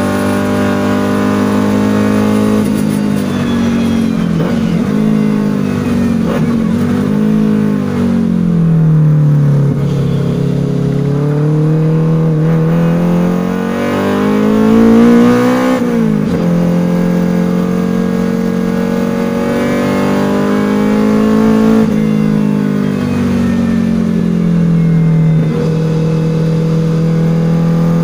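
Toyota Starlet KP61's 4A-GE 20-valve four-cylinder engine heard from inside the cabin, pulling hard on track. The revs climb, then drop suddenly at each upshift, most clearly about sixteen seconds in, and fall away under braking into corners.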